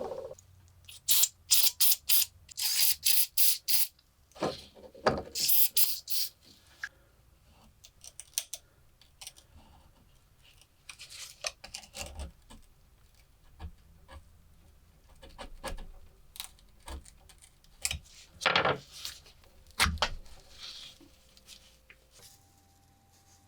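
A rusty metal pocket lighter being handled and worked by hand. A quick run of short rasping strokes comes in the first few seconds, followed by scattered scrapes, rubs and clicks of small metal parts.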